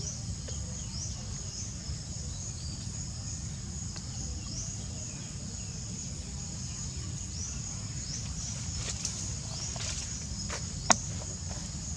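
Steady high-pitched insect chorus with short falling chirps repeating through it, over a low outdoor rumble. A single sharp click near the end.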